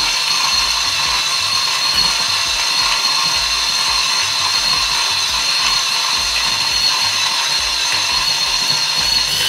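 Varia VS3 electric burr coffee grinder running as it grinds a 20 g dose of coffee beans at a coarse pour-over setting. A steady high motor whine sits over a crackly grinding noise.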